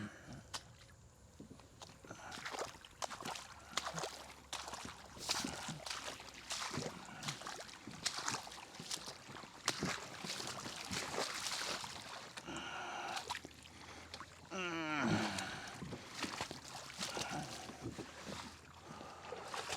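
Splashing, sloshing and squelching of mud and shallow water as a kayak on beach-tire landing gear is pushed out from a mudflat, with many irregular knocks and splashes. About three-quarters of the way through there is a brief falling squeal.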